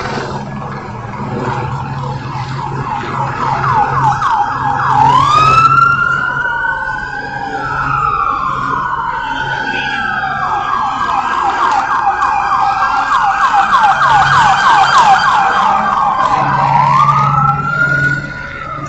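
Several police car sirens sounding together, switching between a fast yelp and a slower rising-and-falling wail, over a low steady drone.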